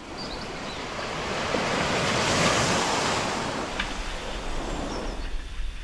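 Sea waves washing, swelling to a loud rush about halfway through and easing off, with wind rumbling on the microphone near the end.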